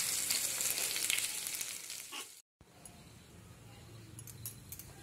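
Hot mustard oil sizzling in a frying pan with crackling cumin seeds and freshly added green chillies, the sizzle fading over the first two seconds. About halfway it cuts off abruptly, and what follows is a faint sizzle with a few light clicks.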